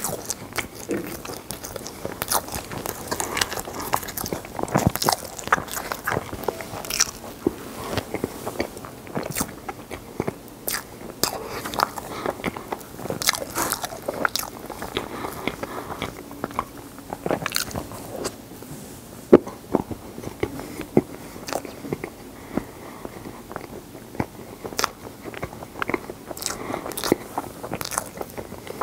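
Chewing and crunching chunks of ice from an Icebox frozen ice cup, with irregular sharp crunches several times a second.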